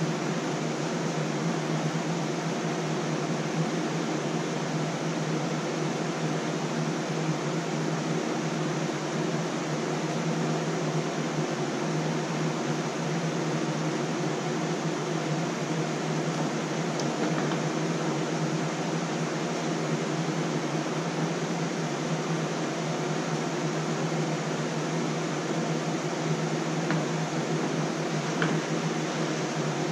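Steady whirring rush of room cooling fans with a constant low hum, unchanging throughout, with a few faint light clicks.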